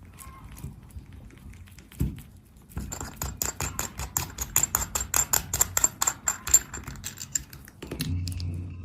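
A watch case back being unscrewed with a case-opener tool: a quick, even run of small metallic clicks, about six a second, starting about three seconds in and lasting some four seconds, after a single knock.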